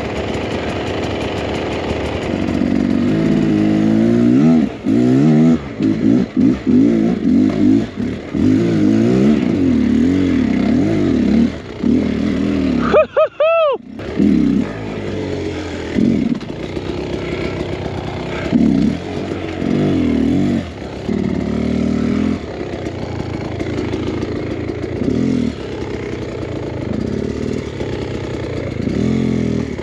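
Beta X Trainer 300 two-stroke dirt bike engine revved in repeated short bursts, its pitch rising and falling, under load on a steep climb through brush and deadfall. About thirteen seconds in, the engine note briefly drops out and comes back.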